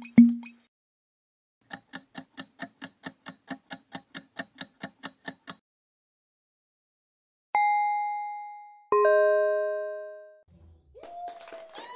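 Quiz countdown-timer ticking, about four ticks a second for roughly four seconds. A single bell-like ding follows, then a lower, fuller chime that fades out, marking the correct answer being revealed. Music starts near the end.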